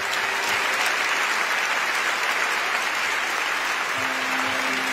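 Large audience applauding steadily, a dense wash of clapping.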